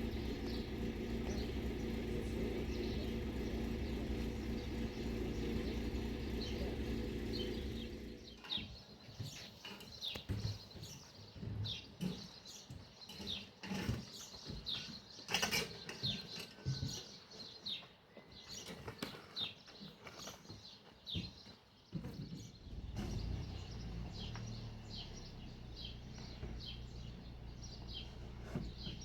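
Small birds chirping over and over in short, high calls, with a few knocks among them. For the first eight seconds or so, a steady low hum covers them; it stops suddenly and comes back fainter near the end.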